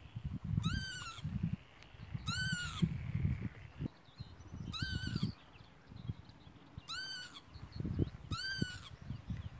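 A bird calling overhead: five short calls, each rising then falling in pitch, repeated about every two seconds over a low rumbling noise. The bird is calling at walkers disturbing it in nesting season.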